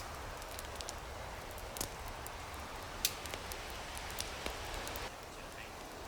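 Newly lit wood campfire crackling, a steady hiss of burning with scattered sharp pops and snaps.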